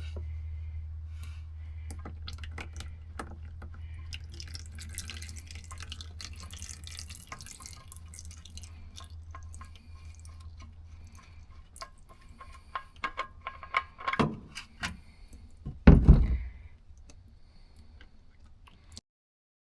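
Engine oil draining and dripping from the drain hole, under a steady low hum, with scattered clicks and clunks and a loud thump about sixteen seconds in.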